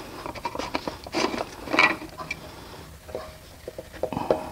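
Plastic canister oil filter housing cover on a Mercedes C300 being unscrewed by hand and lifted off its housing: a few light clicks and scrapes of handling, the loudest about one and two seconds in.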